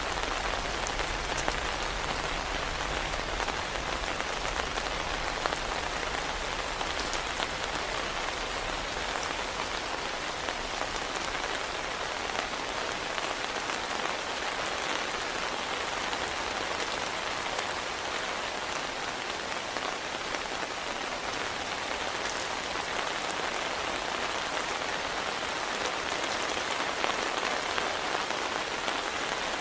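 Steady heavy rain falling, with individual raindrops tapping through the constant hiss.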